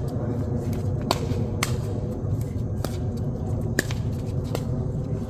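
A series of sharp knocks or clicks, irregularly spaced about half a second to a second apart, over a steady low rumble.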